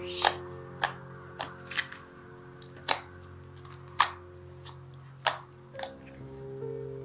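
Glossy white slime being pressed and kneaded by hand, giving a string of sharp wet pops and clicks, irregular and about one a second. Quiet background music with held notes runs underneath.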